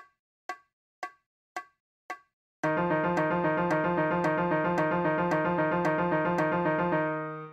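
Play-along track for a lip-trill exercise at 112 beats per minute. Metronome clicks about every half second, then about two and a half seconds in, two neighbouring notes begin alternating rapidly in a slurred trill with the clicks continuing over it. The trill stops and fades shortly before the end.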